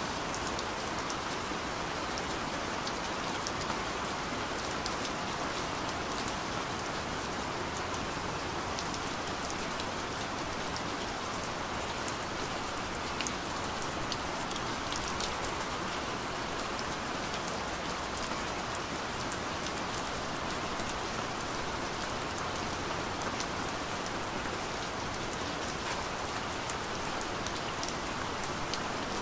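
Steady rain falling, with many separate drops ticking sharply through the even hiss.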